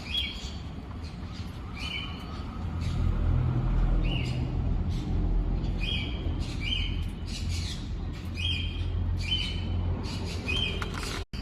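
A bird giving short, repeated calls, about one a second, over a low rumble.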